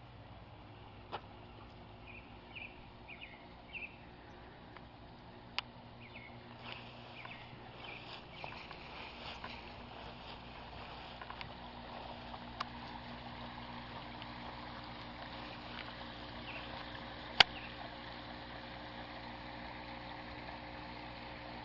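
Water trickling and splashing in a garden koi pond, growing louder from about a third of the way in, over a low steady hum. A few short bird chirps come a few seconds in, and scattered sharp clicks break through, the loudest about three quarters of the way in.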